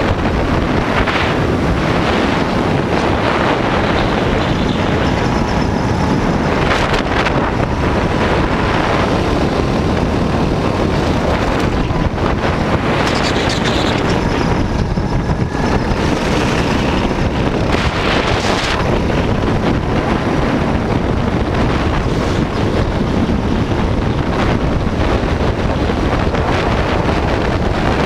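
Heavy wind buffeting on the microphone of a kart-mounted camera at speed, with the racing kart's engine running underneath, steady throughout.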